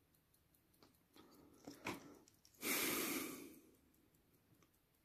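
Faint, rapid, even ticking of a 1905 IWC calibre 52 pocket watch movement. A louder, breathy burst of noise lasting about a second interrupts it near the middle.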